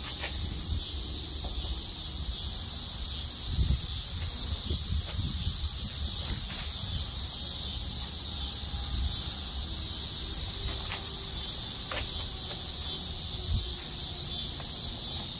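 Steady high-pitched chorus of insects, with a few low knocks and clatter about four seconds in and another knock near the end.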